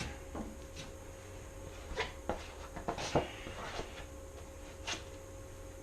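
A few short scrapes and taps of a body-filler spreader working stiffening, almost-set filler over a panel, the longest scrape about three seconds in, over a steady low hum.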